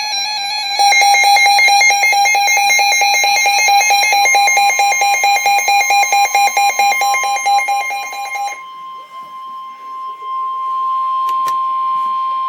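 Emergency-alert warning tones. A loud, rapidly pulsing electronic alarm beep with harsh overtones sounds for about eight and a half seconds. About four seconds in, a steady single high tone of about 1 kHz joins it, typical of the NOAA Weather Radio 1050 Hz warning alarm. The tone carries on alone after the beeping stops, with a brief click near the end.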